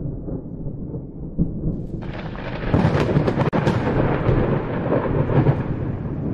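Thunderstorm: a low rumble of thunder that grows louder and brighter about two seconds in, with the hiss of rain, cut off for an instant midway.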